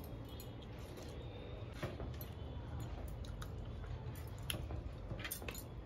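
Quiet sounds of eating by hand: fingers mixing and squishing rice with dal on a steel plate, with scattered light clicks of bangles and fingers against the metal, over a low steady hum.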